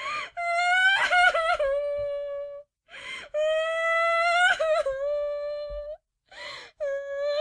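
A woman crying: long, high-pitched wavering wails broken by sharp, gasping sobbing inhales, about three wail-and-gasp cycles.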